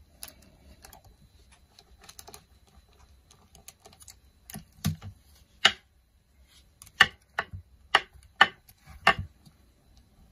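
A clear acrylic roller and plastic texture sheet being handled on a cutting mat while polymer clay is rolled: faint rubbing and ticks, then a run of about eight sharp plastic clicks and knocks in the second half.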